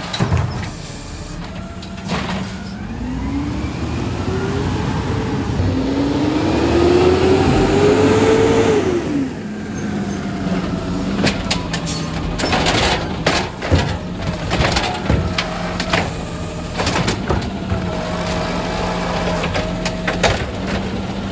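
Automated side-loader garbage truck working its hydraulic arm to dump wheeled carts: the diesel idles underneath, revving twice with a rising whine as the arm works, the second rise the loudest before it falls away about nine seconds in. Scattered clanks and knocks from the arm and carts follow.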